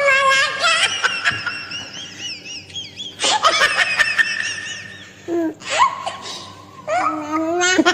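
High-pitched laughter in several wavering bursts, the longest running from about three to five seconds in.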